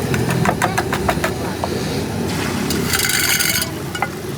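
Steady engine rumble of roadside traffic, with a quick run of sharp clicks in the first second and a half and a short hiss about two and a half seconds in.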